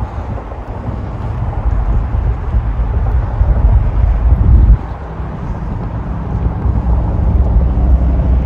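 Steady low rumble of freeway traffic and construction machinery, with wind on the microphone. A louder stretch builds and drops off sharply about five seconds in, leaving a steady engine hum.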